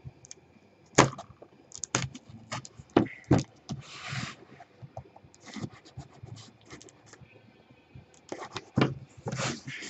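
A cardboard case being slit open with a small knife: sharp clicks and knocks of the blade and cardboard, with short scratchy bursts of the blade drawing through packing tape about four seconds in and again near the end.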